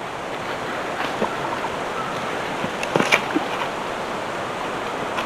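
Steady rushing outdoor noise, with a few sharp clicks about three seconds in.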